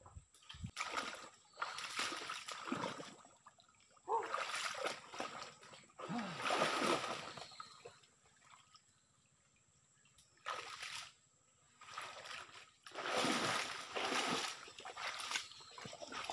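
Wet mangrove mud and shallow water squelching and splashing under people moving through it, in irregular bursts every second or two, with a quiet gap about eight seconds in.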